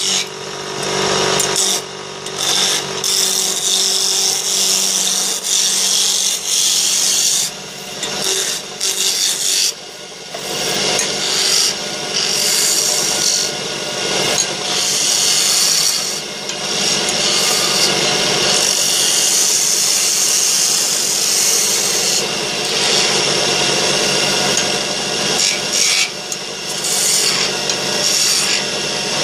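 A hand-held turning gouge cutting into wood spinning on a wood lathe, a steady hissing scrape over the low hum of the lathe's motor. The cut breaks off briefly a few times as the tool is lifted and set back on the wood.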